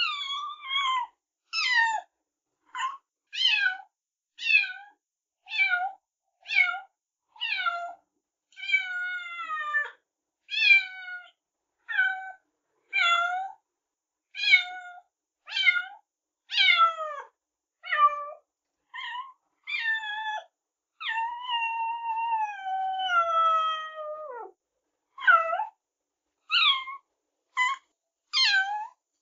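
Kitten meowing over and over, short meows falling in pitch at about one a second. About three quarters of the way through comes one long drawn-out meow that slides down in pitch.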